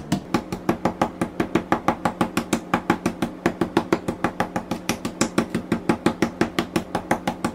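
Wooden meat mallet pounding chicken breasts through plastic wrap on a wooden cutting board: rapid, even blows, about six a second, flattening and tenderising the meat.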